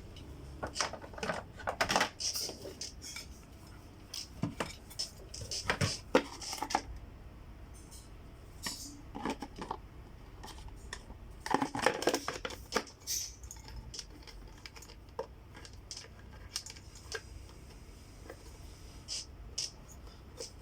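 Clicks, knocks and light clatter of Samsung SC4520 vacuum cleaner parts being handled and fitted together during reassembly, in irregular bursts that are busiest about two, six and twelve seconds in.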